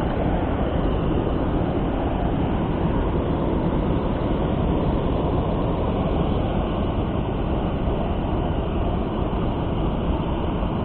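Steady loud rushing of fast-flowing stream water, an even noise with no breaks.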